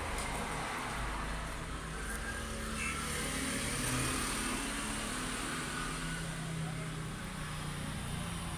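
Steady low engine rumble of a motor vehicle running nearby, with faint voices in the background.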